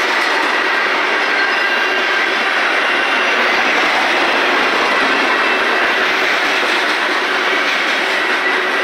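Freight cars of a mixed manifest train rolling past at close range: a loud, steady rumble and clatter of steel wheels on rail.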